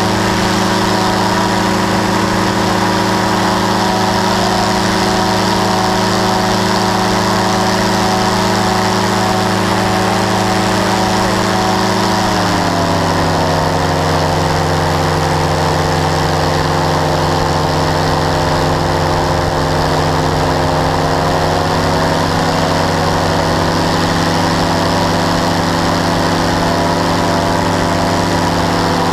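Powered parachute's engine and propeller running steadily in flight. About twelve seconds in the engine slows and its pitch drops, then it runs on evenly at the lower speed.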